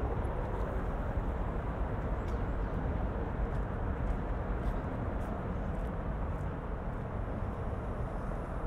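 Steady outdoor city ambience: a continuous low rumble with no single event standing out.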